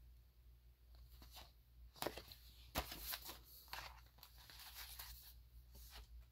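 Faint rustling and scraping of paper and card being handled: a sticker sheet laid down against a cardboard box and photo cards picked up. A few sharper scrapes come between about two and four seconds in.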